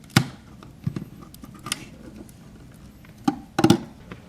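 Scattered clicks and knocks of an old wall light switch being handled and pulled out of its electrical box, with the loudest pair near the end.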